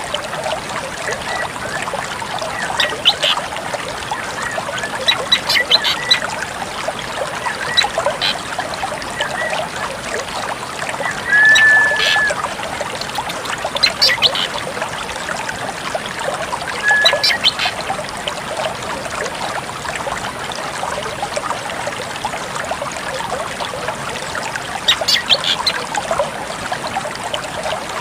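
Drongo calling in scattered bursts, mostly quick clusters of short high notes, with a clear whistle held for about a second near the middle. A steady trickle of running water plays beneath it throughout.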